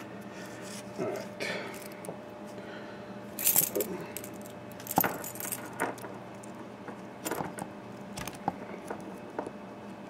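Tiny lock pins and small metal parts from a disassembled padlock cylinder clicking and clattering in scattered bursts as they are handled and set down on cardboard.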